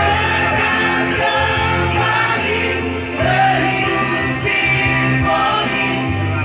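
A voice singing a melody over a band accompaniment, with sustained bass notes that change about every second.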